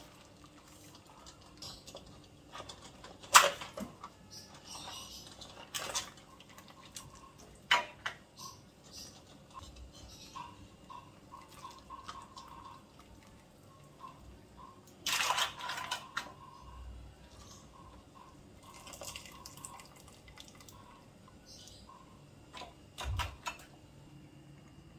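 Water dripping and splashing back into a steel pot as boiled mud crabs are lifted out with tongs. Several sharp clinks and clatters of the tongs and crab shells come through, the loudest about three seconds in, with a cluster around the middle.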